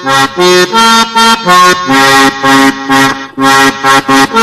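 Recorded dance music led by a button accordion playing short, detached chords and notes in a quick, even rhythm, a few strokes a second.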